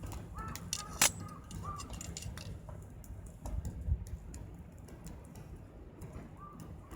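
Scattered sharp clicks and knocks, the loudest about a second in, with crows cawing: a few short caws in the first two seconds and one more near the end.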